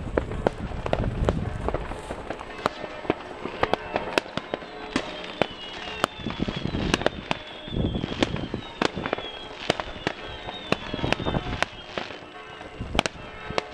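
Many fireworks going off at once: firecrackers and rockets bang at irregular intervals, some close together and some spaced apart. Through the middle, a high whistle falls slowly in pitch.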